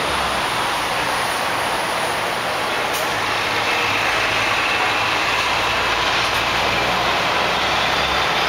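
A truck engine idling with a steady low hum under continuous street noise.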